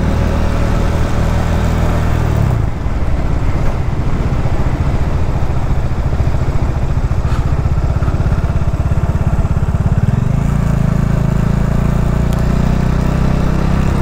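Bajaj Dominar 400's single-cylinder engine running while riding. About two and a half seconds in, its steady note drops into a lower, evenly pulsing beat, and about ten seconds in it settles back into a steady note.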